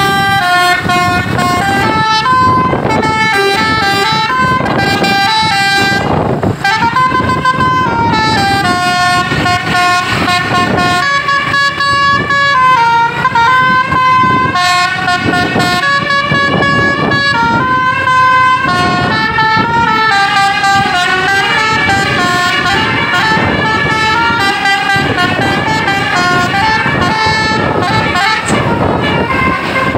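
A 'telolet basuri' musical bus horn, several horn trumpets sounding together, playing a tune of held notes that step up and down in pitch without pause. Bus engine and road noise run underneath.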